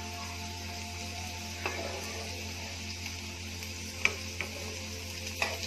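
Potato-stuffed wheat rotis shallow-frying in oil in a nonstick pan with a steady sizzle. A spatula knocks lightly against the pan a few times as the rotis are turned.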